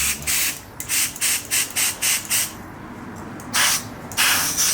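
Compressed air spurting in short, uneven bursts out of a ball-and-spring manual boost controller's wastegate port past a fingertip held over it, sputtering. The spring has been backed off far enough that air gets through at 1 bar.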